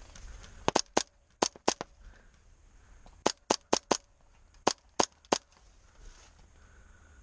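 Airsoft gun firing about a dozen sharp single shots in three quick strings, each a few shots apart by a fraction of a second.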